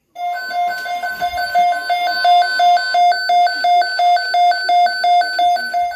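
Electronic alert alarm beeping rapidly, about four high beeps a second, signalling an incoming severe weather alert. A voice runs faintly underneath the beeps.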